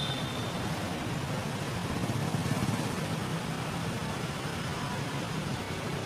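Steady low outdoor background rumble, with no distinct event standing out.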